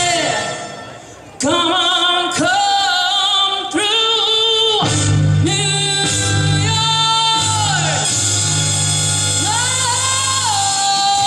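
A woman sings a pop song live into a handheld microphone over a recorded backing track. After a held note the sound fades almost away, and the singing comes back in sharply about a second and a half in. A steady bass line joins the music about five seconds in.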